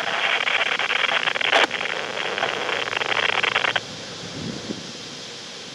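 Weather radio receiver hissing with static during dead air between broadcast segments, with a sharp click about one and a half seconds in. The hiss cuts off abruptly at about four seconds, leaving only a faint background.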